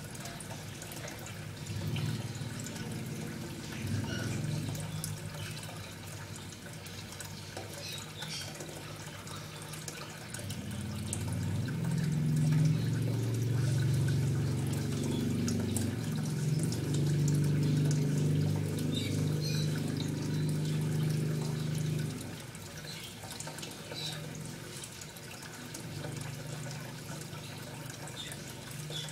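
Water running and trickling steadily with small drips, with a louder low, muffled rumble from about ten seconds in until about twenty-two seconds in.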